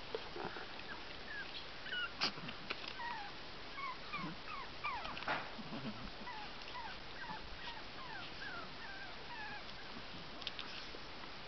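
Small dogs whimpering in a long run of short, falling whines, with a couple of sharp knocks or yips about two seconds in and about halfway through.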